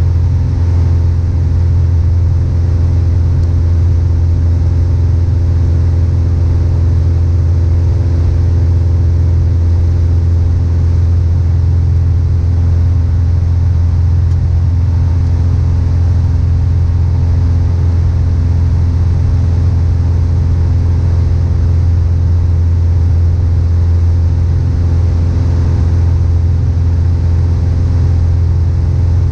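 Piper PA-28-161 Warrior II's four-cylinder Lycoming engine and propeller running steadily in flight, heard inside the cabin as a loud, even, deep drone with a few steady overtones.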